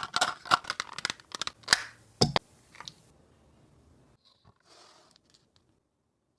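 Packaging being torn open and handled: a quick run of sharp crackles and clicks for the first two seconds or so, then a few faint rustles.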